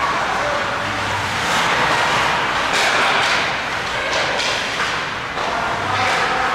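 Ice hockey play on a rink: a steady wash of skating and arena noise, with a few sharp scrapes or knocks from skates, sticks and puck about three and four seconds in.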